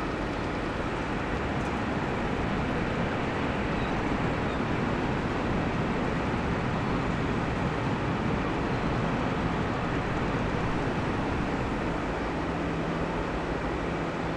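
Steady rumble and hiss of ship machinery, with a low hum that fades mid-way and comes back near the end.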